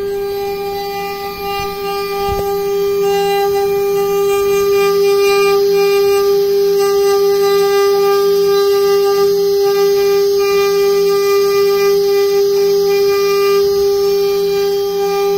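CNC router spindle carving a wooden cylinder turned on the machine's rotary axis: a steady, pitched whine with overtones over the hiss of cutting. It grows louder over the first few seconds as the cut gets going.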